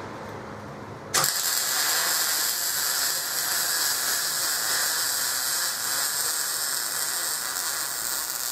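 MIG welder arc striking about a second in, then running steadily through one continuous weld, on a torch fitted with a new contact tip.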